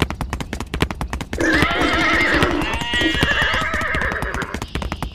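A horse whinnying for about three seconds, starting about a second and a half in, over a rapid run of sharp clicks.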